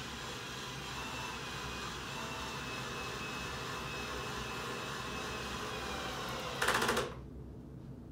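A steady mechanical whir. About six and a half seconds in it gets briefly louder, then stops abruptly.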